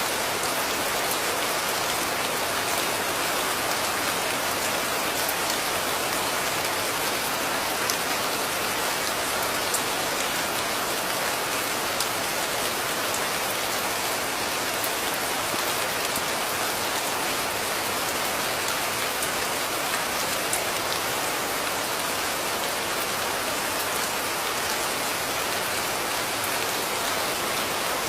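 Steady rain: an even, unbroken hiss of rainfall with scattered faint ticks of individual drops.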